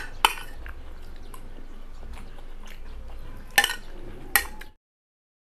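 A spoon clinking against a plate four times during a meal: two quick clinks at the start and two more a little after three and a half seconds in. A low room background runs under them, and the sound cuts off abruptly near the end.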